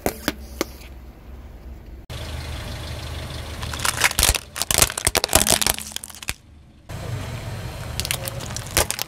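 Car tyre rolling over hard plastic toys, the plastic cracking and snapping in quick runs of sharp cracks, over the low steady running of the car's idling engine. The sound breaks off abruptly several times between separate takes.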